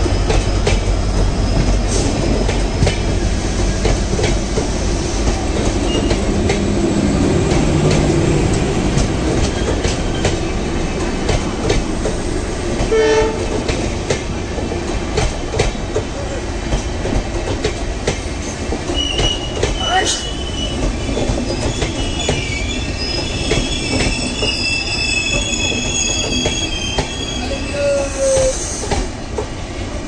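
Passenger train running on the rails, its wheels clicking steadily over the rail joints. In the second half the wheels squeal high-pitched, as wheel flanges do on a curve.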